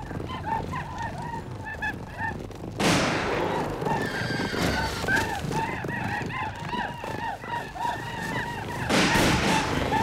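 Many men's voices whooping and yelping war cries together, a dense stream of short rising-and-falling shouts from charging warriors. Two sudden loud bursts of noise break in, about three seconds in and again near the end.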